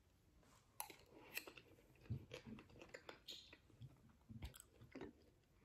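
A person quietly chewing a soft mouthful of vegan shepherd's pie (mashed potato, peas and carrots), close to the microphone, with a few faint clicks of mouth and fork.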